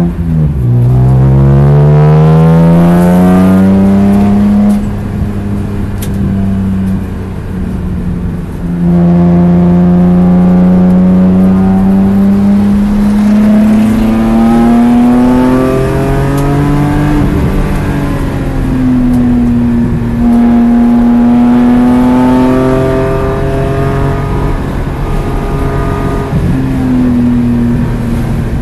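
BMW E46 M3's 3.2-litre inline-six (S54) heard from inside the cabin at full track pace, its pitch rising hard through the gears. A sharp drop in pitch at the very start marks an upshift. The engine goes quieter for braking from about five seconds in, then pulls with rising pitch again from about nine seconds, with further dips and pulls as the car works through the corners.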